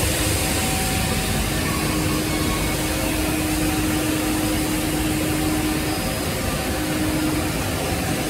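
Holztek Tectra 328 CNC panel saw running, giving a steady noise with a constant hum.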